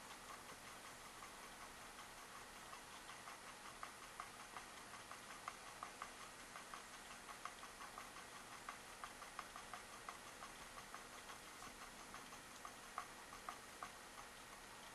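Faint, regular ticking, about three ticks a second, over a low steady hiss near silence.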